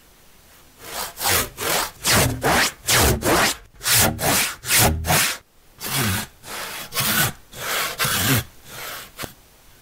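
Handsaw cutting through an oak log, trimming off the base so the log stands square: steady back-and-forth strokes, about two a second, starting about a second in, with a brief pause about five and a half seconds in.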